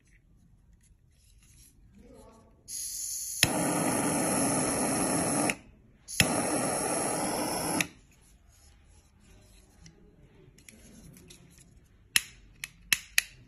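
Butane jet torch lighter fired twice: each time a sharp ignition click and a steady jet-flame hiss lasting two to three seconds, cut off abruptly. Near the end come four sharp clicks.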